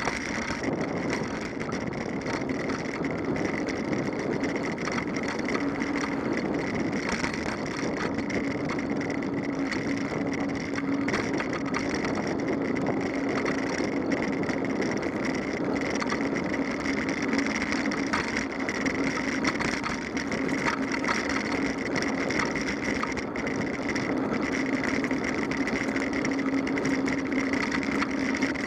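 Bicycle rolling along an asphalt path, heard through a camera mounted on the bike: steady rolling noise with a constant hum and scattered small ticks and rattles from bumps.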